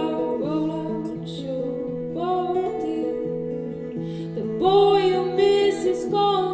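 Background song: a voice singing over plucked acoustic guitar.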